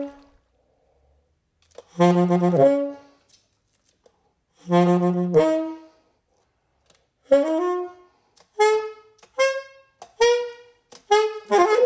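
Solo saxophone music playing slow phrases of held notes, with silent pauses between them, then a run of short, quick notes near the end.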